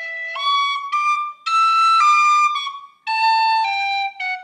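Tin whistle playing a slow traditional Irish phrase: a string of clear, held notes with two short breath pauses. Near the end the line steps down to an F sharp, the start of a little F–G lead-in to the tune's B part.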